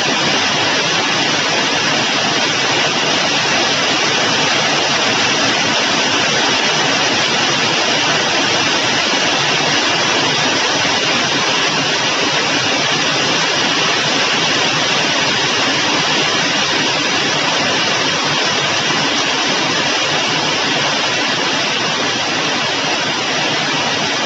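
Heavy rain falling steadily, a loud, even hiss.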